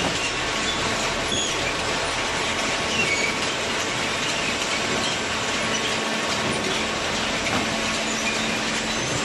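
Industrial machinery running with a steady, even noise and a faint constant hum underneath.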